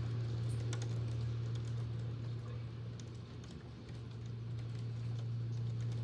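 Electric fan running with a steady low hum, under rain with scattered sharp ticks of drops striking a hard surface.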